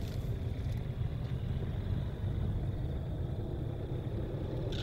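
Qantas Boeing 737-800's CFM56 jet engines heard at a distance as a steady low rumble, with a faint steady high whine above it.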